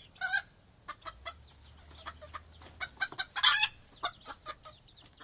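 A flock of chickens clucking in a coop, many short clucks in quick succession. Two louder, brief squawks stand out, one just after the start and the loudest about three and a half seconds in.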